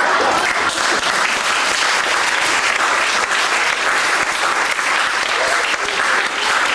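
Audience applauding steadily, a dense spread of many hands clapping.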